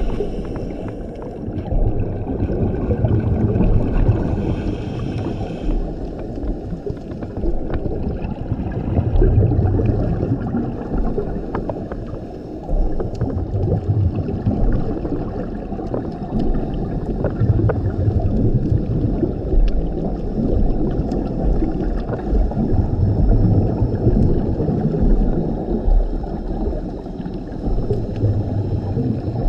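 Scuba diver's regulator heard underwater: a bubbling rumble of exhaled air every six to seven seconds over a steady underwater wash.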